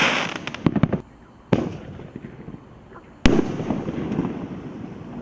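Phantom Fireworks G-498 Neon Blaze aerial firework shooting and bursting. It opens with a crackling hiss of falling stars, then a quick cluster of sharp pops just under a second in, a bang about a second and a half in, and the loudest bang a little over three seconds in, followed by more crackling.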